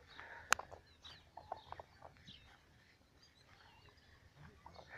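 Faint clucking and high peeping calls of free-ranging farmyard chickens and chicks. A single sharp click sounds about half a second in.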